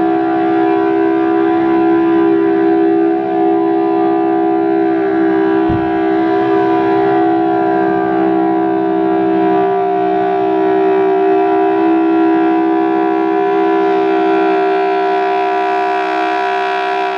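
Federal Signal Thunderbolt 1000T civil-defense siren sounding the steady Alert signal, a loud, sustained two-note tone with no rise or fall. The uploader says its chopper sounds worse than ever. A brief low bump comes about six seconds in.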